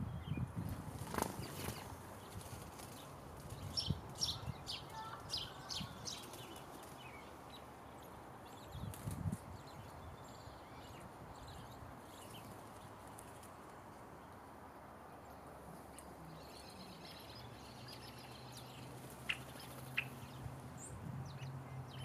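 Small birds at hanging backyard feeders: short high calls and wing flutters in the first few seconds, over faint outdoor background noise. A low steady hum comes in over the last few seconds, with two sharp ticks near the end.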